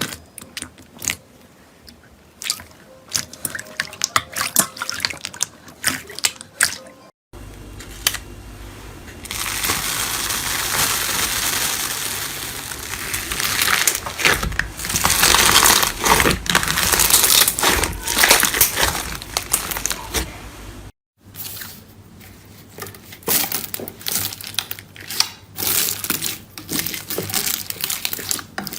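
Slime being squeezed and poked close to the microphone: a run of wet clicks, pops and squelches, thickening into a dense, continuous crackle in the middle stretch. The sound breaks off abruptly twice where one clip gives way to the next.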